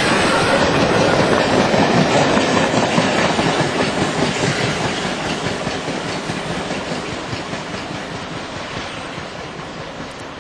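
Steam-hauled passenger train passing at speed, its coaches' wheels clattering over the rail joints. The sound fades steadily as the train draws away.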